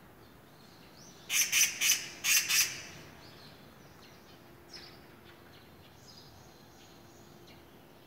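A bird calling: a quick run of five loud, harsh calls about a second in, followed by fainter scattered chirps.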